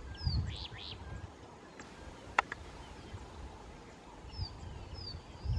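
Birds calling with short descending whistles, near the start and again in the last second, over an uneven low rumble, with one sharp click about two and a half seconds in.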